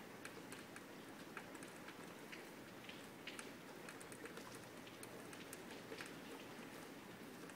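Light rain falling: a faint steady patter with single drops ticking irregularly, several times a second.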